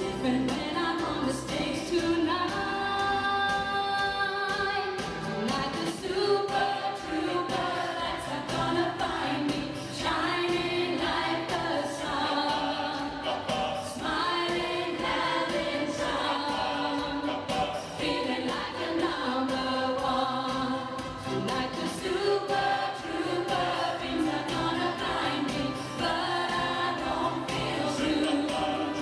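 A choir singing a song with accompaniment that keeps a steady beat.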